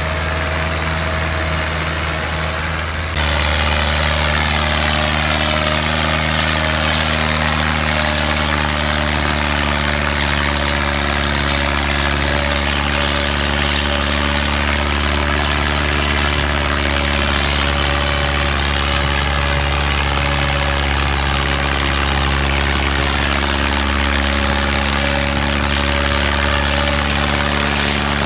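Diesel tractor engine running hard at steady revs while dragging a disc harrow through the soil. About three seconds in the sound cuts abruptly to another, louder tractor engine, which also holds steady.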